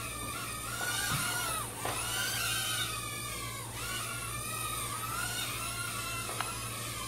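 JJRC H20 nano hexacopter's six tiny motors and propellers whining, the pitch rising and falling over and over as it is flown in high rate and spun hard on yaw.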